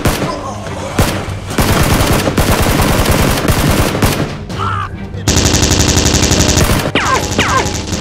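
Rapid automatic gunfire: a dense, ragged burst of shots, then from about five seconds in an even, fast machine-gun rattle.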